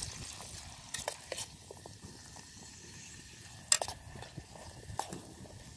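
Wooden spoon stirring chopped chilies and shallots frying in hot oil in a small metal pot, with a faint sizzle and a few sharp knocks of the spoon against the pot, the loudest about three and a half seconds in.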